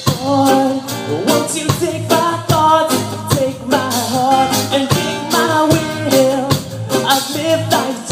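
Live band playing a reggae song: acoustic guitars strumming over a drum kit and hand percussion, with a man singing.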